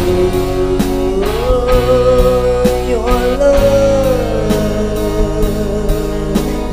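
A pop song: a singer holding long, gliding notes over a band with a steady beat.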